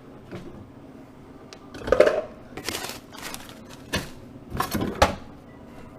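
Hands handling a side-by-side refrigerator's ice maker, making a series of sharp plastic knocks, clicks and rattles: a cluster about two seconds in and more between about four and five seconds.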